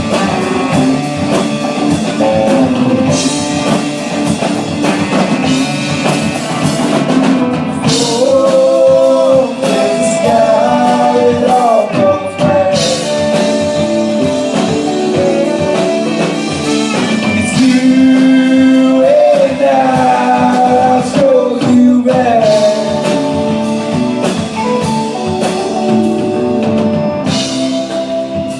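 Rock band playing a song live: drum kit with cymbals struck on the beat, guitars, and a lead melody that bends up and down in pitch.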